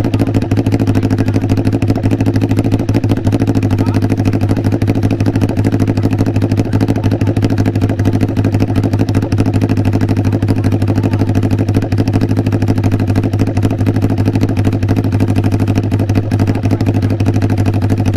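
Ninja 400 RR motorcycle's inline-four engine running at a steady speed through an SC-Project aftermarket exhaust, giving an even, unchanging exhaust note with no revving.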